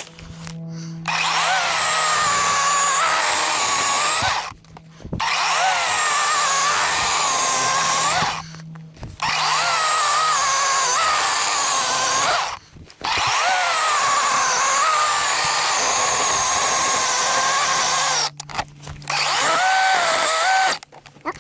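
DeWalt 20 V cordless chainsaw with a 12-inch bar, its electric motor and chain whining as it cuts wood into firewood. The whine wavers in pitch under load. It runs in four stretches of three to five seconds each, with brief stops between them, and a shorter run comes near the end.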